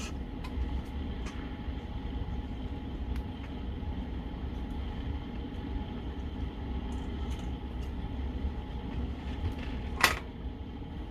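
Steady room hum with light handling clicks from the plastic pump housing being worked on a table, and one sharp knock about ten seconds in.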